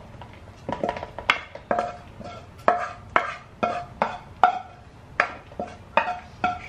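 A spoon scooping stir-fry and clinking against the cookware, a run of sharp knocks at about two a second, each with a short ring.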